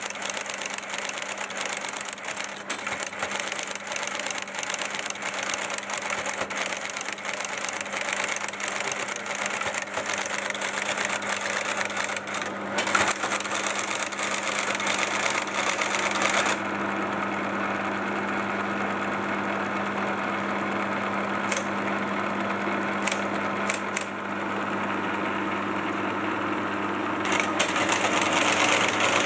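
Friden Flexowriter printing out an LGP-30 computer's results: a rapid, continuous clatter of typebar strikes over a steady machine hum. About 16 seconds in the clatter stops for around ten seconds, leaving the hum with a few lone clicks, and it starts again near the end.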